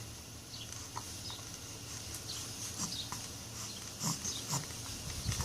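A baby making small, short grunts and squeaks here and there.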